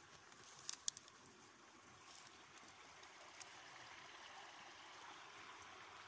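Faint trickle of creek water running through a beaver dam of sticks and logs, with a few sharp clicks about a second in.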